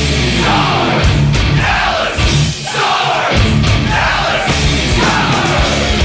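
Hard rock goal song, loud and distorted, with shouted vocals and a falling swoop about once a second.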